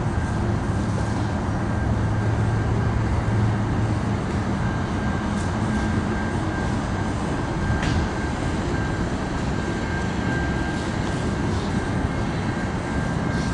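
Canadian National freight train cars rolling across a street level crossing: a steady rumble of wheels on the rails, with a thin high tone over it and a sharp click about eight seconds in.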